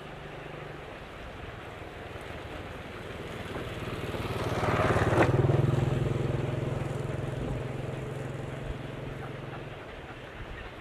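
A vehicle passing by. Its engine hum swells to a peak about halfway through, drops slightly in pitch as it goes past, then fades.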